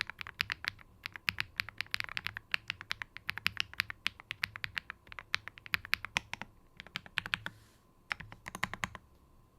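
Typing on an Evo80 custom mechanical keyboard with Higanbana r1 switches, built with an aluminium plate, switch-pad foam and no bottom foam: fast runs of crisp keystrokes with short pauses, the longest about eight seconds in.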